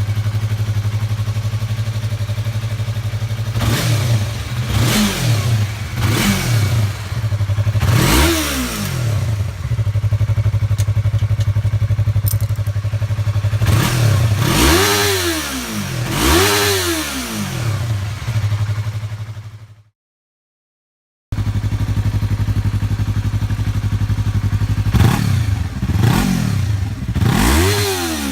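Yamaha YZF-R3's 321 cc parallel-twin engine idling and being blipped, the revs rising and falling sharply about six times. After a brief silence it idles again in a second recording and is blipped three more times, one recording on the stock exhaust and one on a Coffman's aftermarket exhaust.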